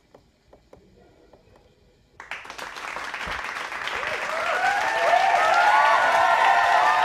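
A few faint clicks from pressing the coffee maker's buttons, then about two seconds in a crowd suddenly breaks into applause and cheering that swells, with whoops rising over it.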